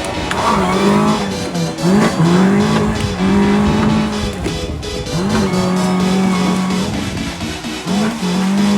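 Car engine revving hard and held at high revs, its pitch sweeping up and then holding, three times over, with tyre noise.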